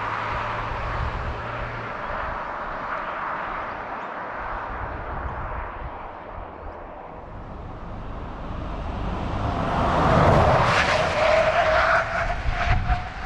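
Ford Everest SUV approaching at speed, its road and engine noise swelling to a peak, then braking hard from 100 km/h. Through the last few seconds of the stop a loud tyre squeal rises slightly in pitch, broken by sharp chirps.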